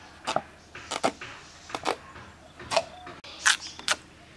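Unripe green papaya being cut on a bonti, the upright curved blade used in Bengali kitchens. It gives a series of about eight short, crisp cutting sounds, some in quick pairs, as the fruit is pushed through the blade.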